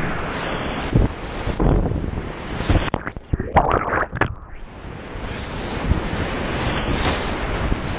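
Rushing whitewater rapids and wind noise on an action camera's microphone as a kayak runs through big waves. About three seconds in, the camera goes under a breaking wave and the sound turns muffled and churning for a second or so, then the open rushing returns.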